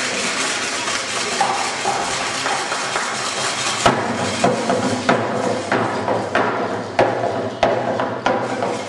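An even murmur of noise, then about four seconds in a drum starts a steady beat of about three strokes every two seconds, the pulse for Aztec dancing.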